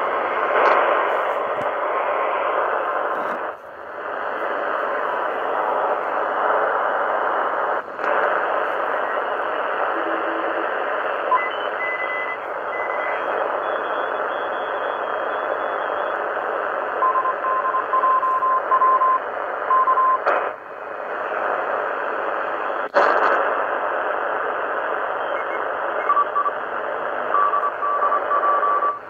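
An ATS25X1 shortwave receiver's loudspeaker hisses with band noise in USB mode while tuned across the 20-metre amateur band, cutting out briefly a few times. Morse code signals come through the noise as short on-off beeps of a steady tone, clearest in the second half.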